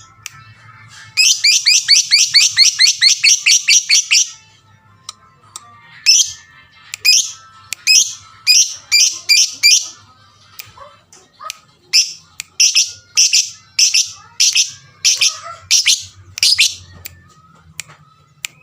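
Lovebird calling: a fast run of sharp, high chirps for about three seconds, then loud single chirps repeated about two a second with short pauses.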